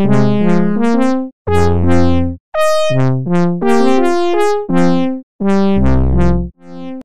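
Phase Monkey phase-distortion polyphonic synthesizer playing its 'Brass Section' factory preset: a sequenced line of overlapping brassy notes and chords. Each note starts bright and quickly mellows, and the music comes in short phrases with brief breaks between them.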